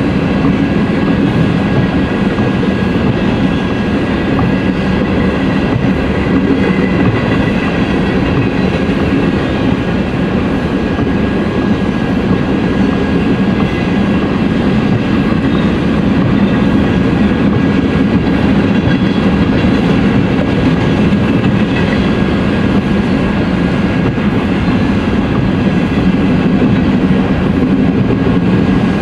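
Covered hopper cars of a grain train rolling past, a steady loud rumble of steel wheels on rail.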